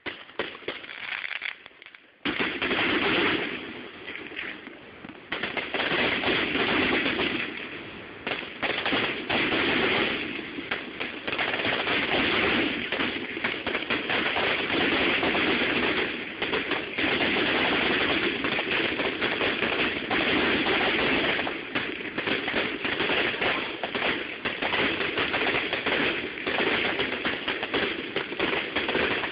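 Aerial fireworks going off in a dense, nearly continuous barrage of bangs and crackle, heard through a phone's microphone that distorts it into crackle. A few separate bursts come first, then it turns into an almost unbroken volley about two seconds in.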